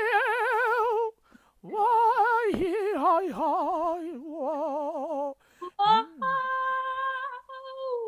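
A single voice singing unaccompanied in a high register, holding long notes with wide vibrato and sliding between them, broken by a few short pauses.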